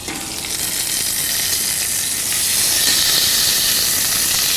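Lamb chops frying in olive oil in a deep, thick-bottomed pan: a steady sizzle that grows louder over the first couple of seconds and then holds.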